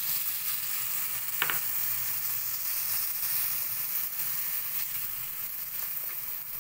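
Tamarind water poured into a hot pan of frying bitter gourd slices and onion, setting off steady sizzling that jumps up right at the start. A wooden spatula stirs through it, with one short sharp sound about one and a half seconds in.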